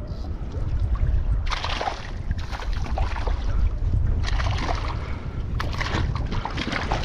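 Wind buffeting the microphone, with water splashing in several short bursts as a hooked trevally thrashes at the surface beside the kayak.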